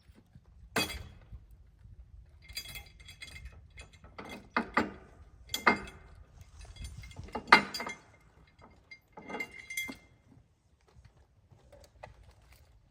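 Clanking metal and sharp knocks as logs are unloaded from a log wagon: a string of separate loud strikes with metallic clinking between them.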